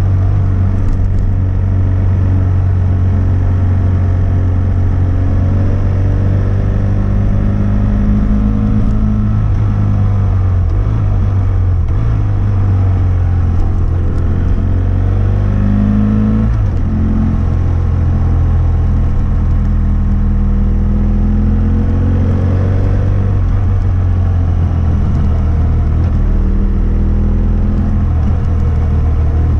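2006 BMW F800S's parallel-twin engine through a GPR Furore Nero aftermarket exhaust with its dB-killer fitted, riding on the road: the revs climb in long rising sweeps and drop back sharply at each gear change, three times.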